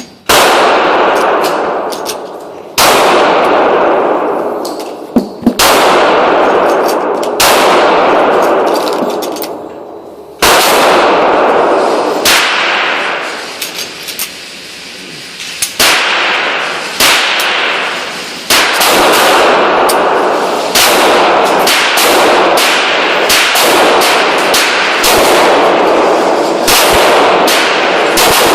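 Pistol gunshots from a Ruger SR40 in .40 S&W firing TulAmmo, each shot followed by a long echoing tail. The shots come a few seconds apart at first, then faster and overlapping in the second half.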